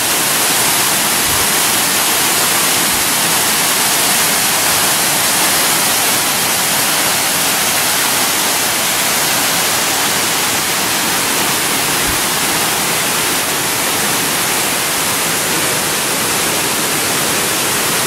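Waterfall's white water cascading down rock, a steady, even rush.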